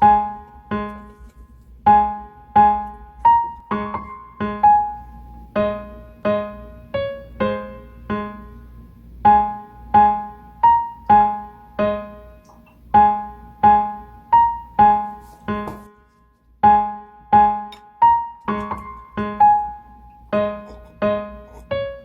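Background music: a simple melody played on a piano-like keyboard in separate struck notes, each fading quickly, about two a second, over a repeated low note, with a brief pause about two-thirds of the way through.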